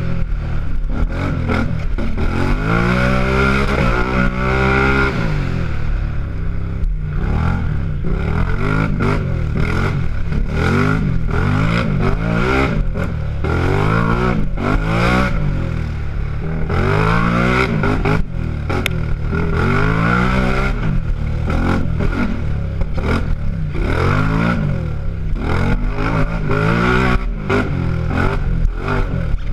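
Racing quad (ATV) engine under hard acceleration, heard from on board, its pitch climbing through each gear and dropping back over and over as the rider shifts and lets off.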